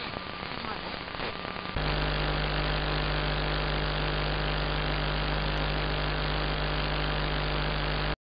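Web SDR receiver audio, AM-demodulated on 225 kHz longwave. It starts as hiss and crackle, and about two seconds in a steady buzzing hum with many evenly spaced overtones takes over. No station programme is heard.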